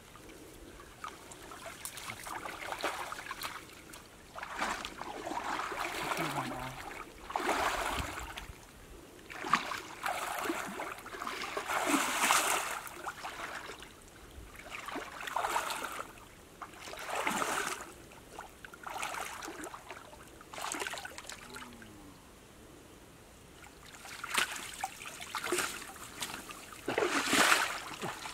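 Muddy pond water sloshing and splashing in repeated surges, each about a second long, as a mosquito net is dragged through it by people wading in the water. There is a quieter lull about three-quarters of the way through.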